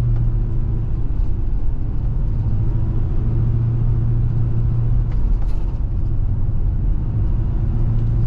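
Car driving along a highway, heard from inside the cabin: a steady low engine hum over road and tyre rumble.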